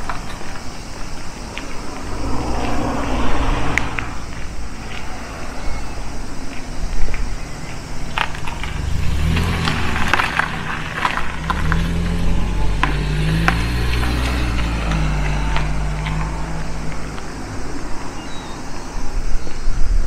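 A car engine passing by, briefly about two seconds in and then for several seconds from about the middle, its pitch rising and falling. Sharp footstep crunches throughout.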